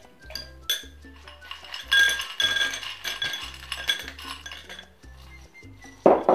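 Ice cubes tipped from a glass bowl clatter and clink into a glass mixing glass, then a metal bar spoon clinks against the ice and glass as it stirs. Background music with a steady bass line plays underneath, and there is a dull thump near the end.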